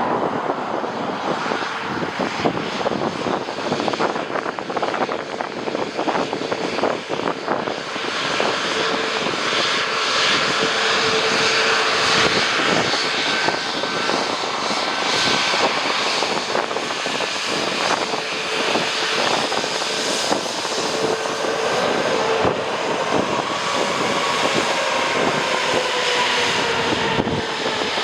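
Jet airliner engines on approach to land: a continuous rushing roar that grows louder about eight seconds in, with a faint whine that slides down in pitch near the end as the aircraft passes. Gusting wind buffets the microphone throughout.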